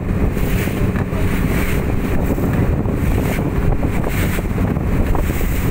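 A small motorboat's engine running steadily underway, with wind buffeting the microphone.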